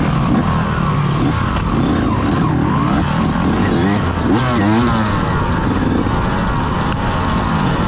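Yamaha YZ125X's 125 cc two-stroke single-cylinder engine revving, its pitch climbing and dropping again and again, with a quick run of sharp rises and falls about four to five seconds in.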